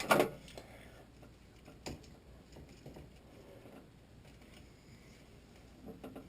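Faint handling noises with a few light clicks and knocks, one sharper click about two seconds in.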